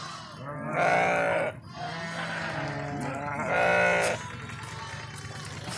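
Sheep bleating, two loud bleats about a second and three and a half seconds in, with fainter bleats between.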